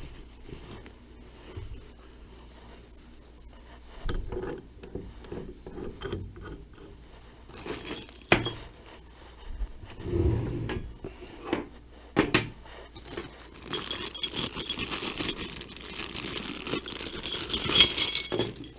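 Hands handling lathe parts: scattered knocks and scrapes of metal parts on the lathe bed, then a long crinkling rustle as a plastic bag of small hardware is handled, with light clinks of the parts inside.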